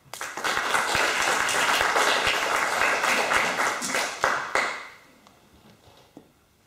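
Audience applauding. It starts suddenly and dies away after about five seconds, ending in a few scattered claps.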